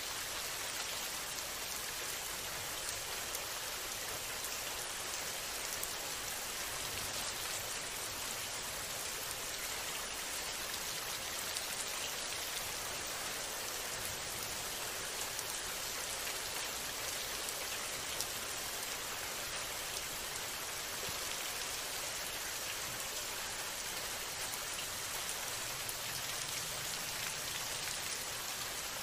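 Steady rain sound, an even hiss of falling rain with fine pattering drops and no change throughout, used as the masking bed of a subliminal audio track.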